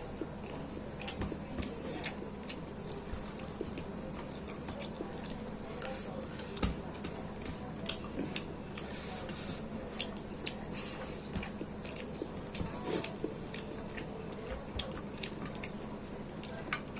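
Close-up eating sounds: chewing and biting into food, with irregular wet clicks and smacks over a faint steady hum.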